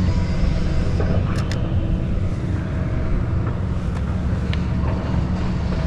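Steady low rumble of wind buffeting the microphone outdoors, with a few faint high clicks.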